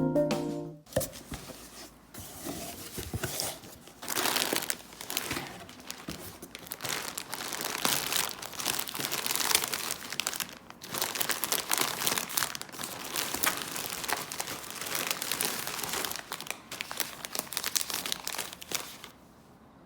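Crinkling and rustling from something being handled, in irregular bursts that stop shortly before the end.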